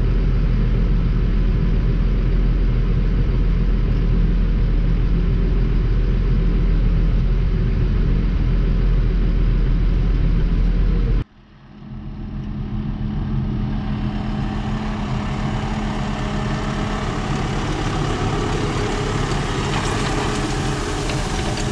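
Tractor engine running steadily with a deep, even hum. About eleven seconds in the sound cuts abruptly to a different take of the engine running, with more hiss and clatter over it, building back up over a couple of seconds.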